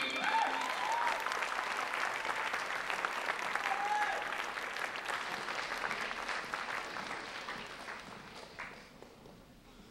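Audience applause after a dance number, with a couple of short cheers in the first second and again about four seconds in; the clapping fades away toward the end.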